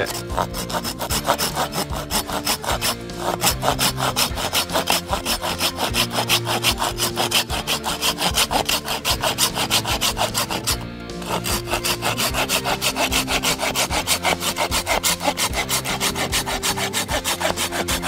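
A Takagi Shark Saw 'TANOSHI-BI' folding saw with a 180 mm curved blade cutting through split firewood with fast, even push-pull strokes. It pauses briefly once, a little past the middle.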